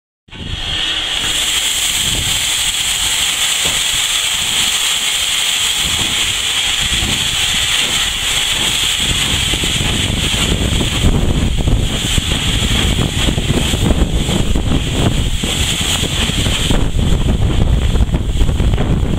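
Steam locomotive hissing loudly and steadily, starting abruptly just after the start; from about halfway a rougher low rumble builds up beneath the hiss.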